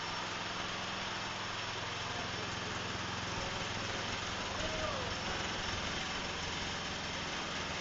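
Cub Cadet LT1045 lawn tractor's engine running steadily, with its newly installed drive belt.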